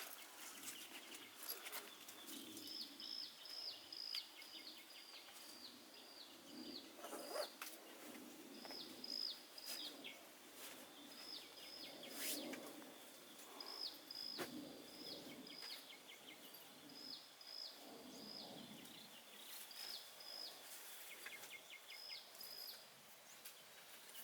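A bird calling faintly: runs of short, high chirps, each flicking quickly downward, repeated many times. Underneath is a thin steady high tone and a few scattered small clicks.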